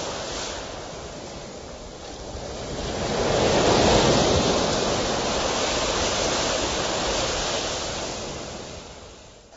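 Ocean waves washing in: a rushing noise that swells to its loudest about three to four seconds in, then slowly dies away.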